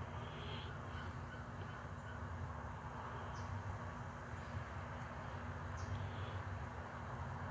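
Steady low outdoor background rumble with a few faint, short bird calls.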